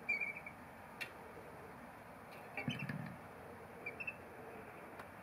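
Brief high chirping calls from a bird, three short bursts about two seconds apart. A single sharp click comes about a second in, and a soft thump comes under the second burst.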